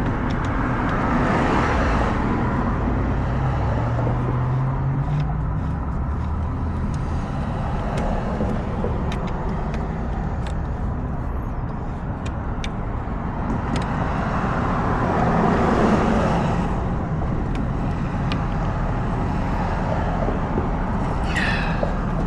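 Motor vehicle traffic rumbling steadily, swelling twice as vehicles pass: once about a second in and again near the middle of the second half.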